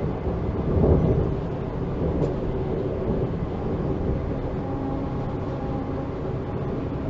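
Running noise inside a DB class 442 (Bombardier Talent 2) electric multiple unit: a steady low rumble of the wheels on the track, with a heavier bump about a second in.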